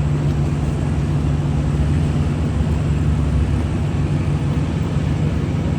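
Boat engine running steadily: a low, even drone with no change in pitch or speed.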